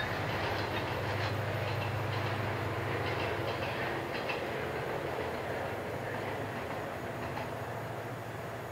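Saemaeul-ho passenger train, hauled by a diesel-electric locomotive, running past on the rails. Scattered wheel clicks sound over the first four seconds or so over a steady low hum, and the whole sound slowly fades as the train moves away.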